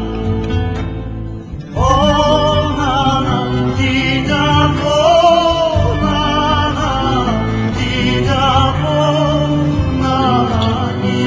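A Laz-language song: a solo voice sings long held notes with strong vibrato over steady instrumental backing, the voice coming in about two seconds in.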